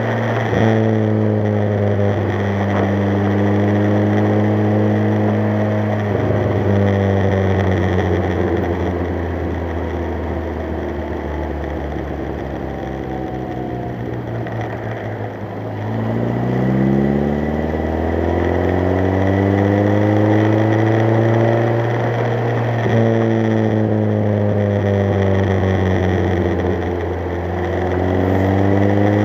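Triumph TR3's four-cylinder engine through a Monza exhaust, driving on the road. The revs drop at gear changes about half a second and six seconds in, then fall away slowly as the car slows. From about halfway the revs climb steadily under acceleration, with another gear change and a renewed climb near the end.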